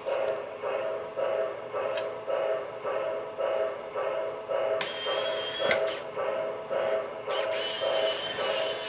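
Standard gauge toy train running, with a hum that pulses about twice a second. A high whistle sounds briefly about five seconds in, and again from about seven seconds in.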